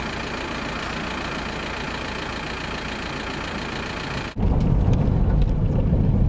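Outdoor wind noise: a steady, even hiss, then about four seconds in, on a cut, louder wind buffeting the microphone with a heavy low rumble.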